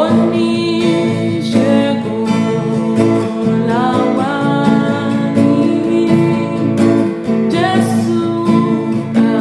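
A woman singing a Yoruba hymn over a strummed guitar accompaniment.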